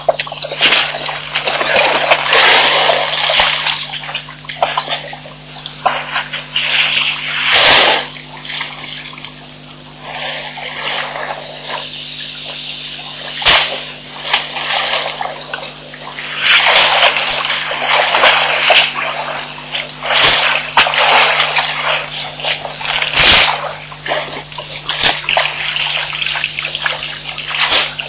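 African elephants wading and splashing in a shallow waterhole: bursts of splashing and sloshing water that swell and fade, with a few sharp slaps. A steady low hum runs underneath.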